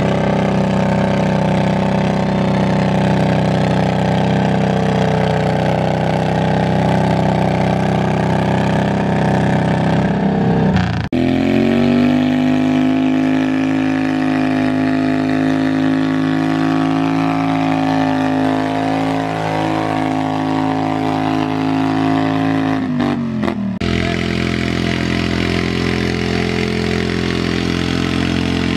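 Garden tractor engines running hard as pulling tractors drag a weight-transfer sled, one steady engine note after another with sudden changes between tractors. The middle tractor's note sags in pitch just before its sound cuts off.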